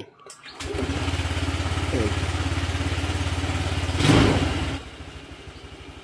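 Honda Click scooter's single-cylinder four-stroke engine started from the red starter button on a Domino handlebar switch, then running with a steady low pulse. It surges louder briefly about four seconds in, then runs on quieter.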